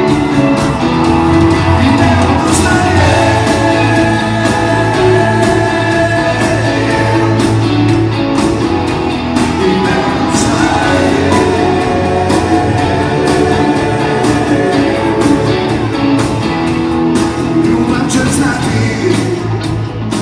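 Live band playing with a singer, loud and continuous, heard from among the audience in a large arena hall.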